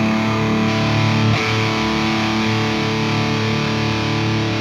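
Electric guitar played through a Fractal Audio Axe-FX II amp modeler, a distorted chord held and ringing steadily.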